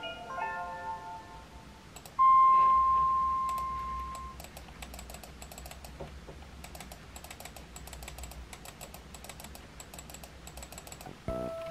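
Fast, continuous typing on a laptop keyboard mixed with rapid mouse clicks. About two seconds in, a single clear tone rings out loud and fades over about two seconds.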